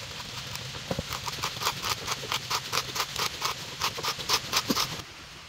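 Hand-turned 25 mm wood auger bit boring into a thick slab of deadwood, its cutting edge shaving the wood in quick, rhythmic scraping strokes about four a second that stop about five seconds in.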